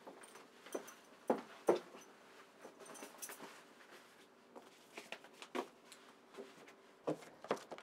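Scattered light knocks, taps and rustles of small objects and papers being handled on a counter, the loudest pair about a second and a half in.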